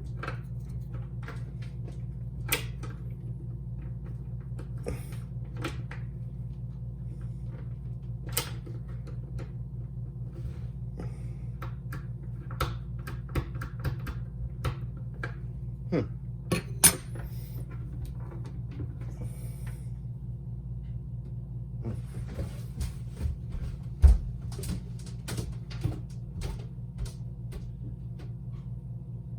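Irregular small clicks and knocks of a door handle and lock mechanism being worked and handled, with two louder knocks about two-thirds of the way through, over a steady low hum.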